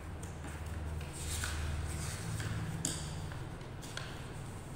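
A page of a paper workbook being handled and turned by hand: brief rustling with a few soft taps and one sharp click about three seconds in, over a low steady hum.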